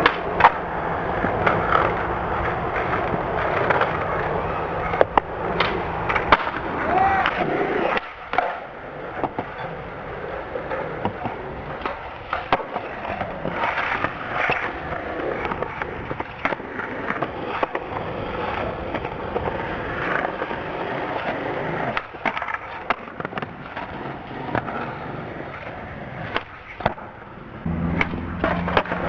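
Skateboard wheels rolling over concrete and asphalt, broken by sharp wooden clacks of boards popping and landing, across several short trick clips.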